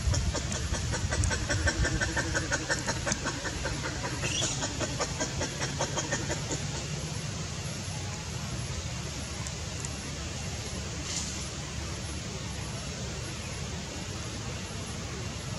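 Outdoor forest ambience: a steady low rumble, with a fast run of high chirping ticks for about the first six seconds and a short rising call about four seconds in.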